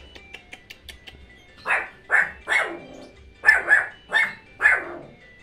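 A dog barking repeatedly: about seven short barks beginning a second and a half in, some coming in quick pairs, after a few faint quick ticks in the first second.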